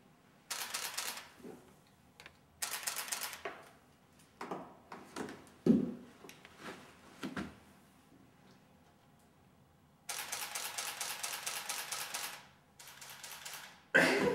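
Camera shutter firing in rapid continuous bursts: three runs of quick, even clicks, the last about two and a half seconds long, with a few softer knocks in between.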